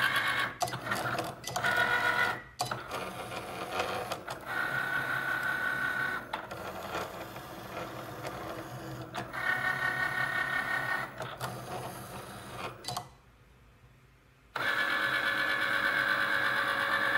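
Cricut Explore Air 2 cutting machine whirring as its stepper motors drive the blade carriage and the mat back and forth to cut out sticker labels, in stop-and-go runs of a second or two. Near the end it goes quiet for about a second and a half, then runs steadily for a few seconds as the cut is finished and the mat is fed back out.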